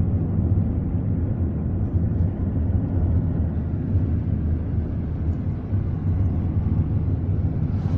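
Car interior noise while driving: a steady low rumble of engine and tyres on the road.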